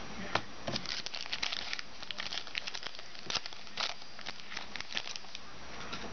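A pack of football trading cards being handled: crinkling of the pack wrapper and a run of quick small flicks and snaps as the cards are gone through.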